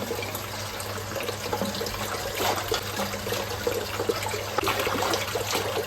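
Water running from a tap into a sink and splashing, with small crackling splashes throughout, as produce is rinsed under it.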